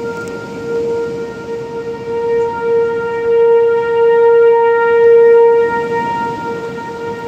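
Outdoor tornado warning siren wailing on one steady pitch, swelling louder in the middle and easing off near the end.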